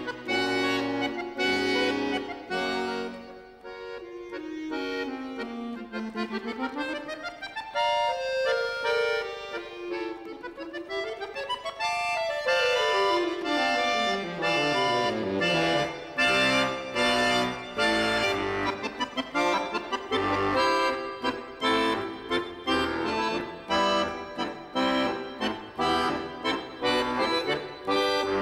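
Button accordion playing a fast virtuoso solo: quick runs sweep up and down the keyboard in the first half, with a long falling run near the middle, then the music turns to rapid, rhythmic chords.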